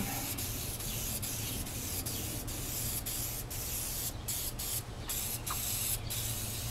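Aerosol spray can hissing as a coat of Bulldog adhesion promoter is sprayed onto a plastic motorcycle fairing, a steady hiss broken by several short breaks in the second half as the nozzle is let go and pressed again.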